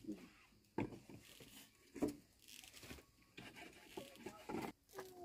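Machete blade chopping raw pork against a wooden cutting board: a string of dull knocks about a second apart, unevenly spaced.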